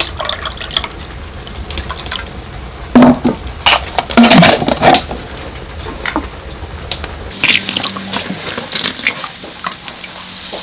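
Liquid splashing and dripping, with scattered knocks of utensils against a container.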